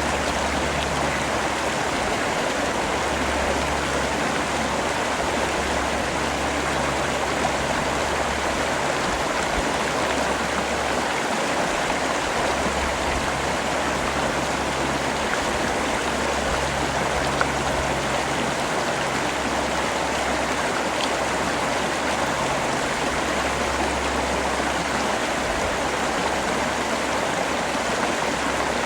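Steady rain falling, an even, unbroken hiss with no pauses. A low hum comes and goes underneath every few seconds.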